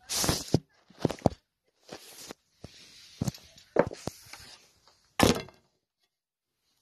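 Handling noise from a phone being moved about: a string of knocks and rubbing scrapes on its microphone, with the sharpest knocks right at the start and again about five seconds in.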